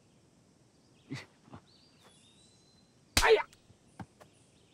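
Faint bird calls over a quiet background. A short sound comes about a second in, and a louder brief sound about three seconds in.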